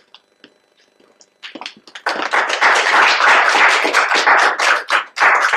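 Audience applauding: many hands clapping, starting about a second and a half in, quickly swelling to full strength and dying away near the end.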